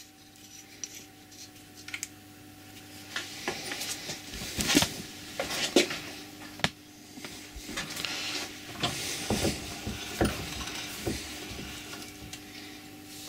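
Scattered clicks, knocks and rubbing of metal tools and parts being handled on a workbench, busier after the first few seconds, over a faint steady hum.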